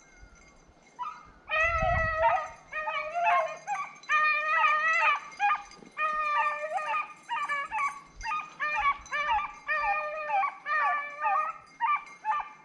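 Hunting dogs baying on a rabbit's trail: a string of short, high calls, about one to two a second, starting about a second in. This is the dogs giving voice as they follow the rabbit's scent during the chase.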